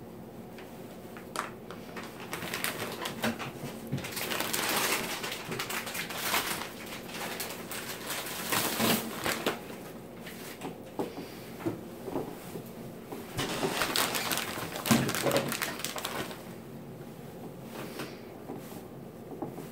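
Plastic ravioli packets rustling and crinkling as ravioli are pulled out and set down by hand on shredded cheese in a glass baking dish, in uneven bursts with small taps and clicks.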